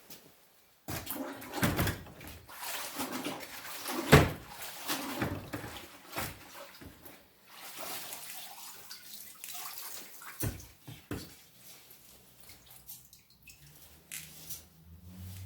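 Gasoline sloshing and splashing irregularly as a VW cylinder head is rinsed in it, with a couple of sharp knocks, the loudest about four seconds in.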